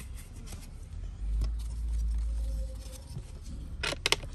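Handling noise as an electronics logic board is moved on a silicone repair mat: a low rumble, then a quick cluster of sharp clicks and taps near the end.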